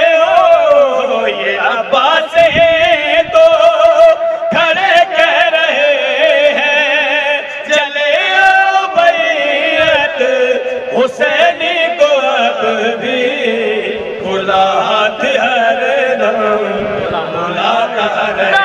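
A man singing an unaccompanied Urdu devotional chant into a microphone, drawing out long wavering notes.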